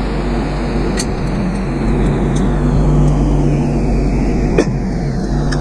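Steady, loud machine-like hum throughout, with a few sharp metallic clicks, about a second in and twice near the end, as parts are handled and fitted on a small engine.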